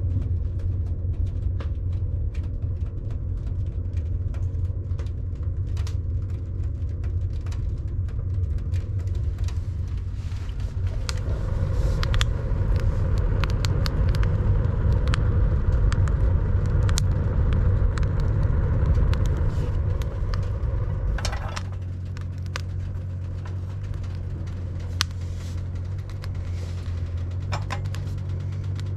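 A machine's engine running steadily, working harder and louder through the middle and easing off about two-thirds of the way through, with scattered metallic clanks and knocks.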